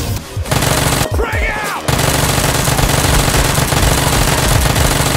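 Machine-gun sound effect: rapid automatic fire, in a short burst and then continuous from about two seconds in.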